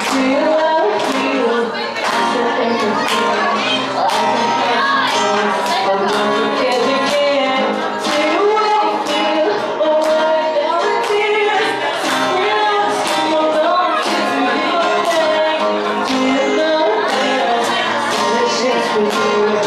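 Live female vocals sung into a microphone over a steadily strummed acoustic guitar.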